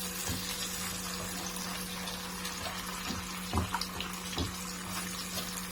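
Omelette of beaten eggs with tomato and green chili sizzling steadily in oil in a frying pan, over a low steady hum. A few faint taps come around the middle.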